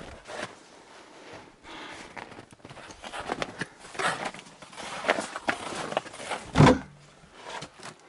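Footsteps, rustling and knocks as someone pushes past a plastic tarp and steps into a small log hut, with one heavy thump near the end.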